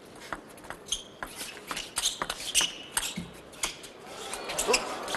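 Table tennis rally: sharp clicks of the ball striking the rackets and the table in quick, irregular succession. Crowd noise builds near the end.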